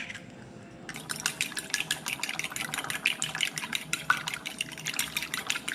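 Raw eggs being beaten in a bowl: a utensil clicks quickly and steadily against the bowl through the liquid egg, starting about a second in.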